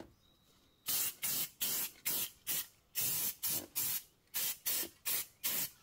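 Aerosol spray-paint can sprayed in short, quick bursts, about three a second, starting about a second in, each a sharp hiss that cuts off.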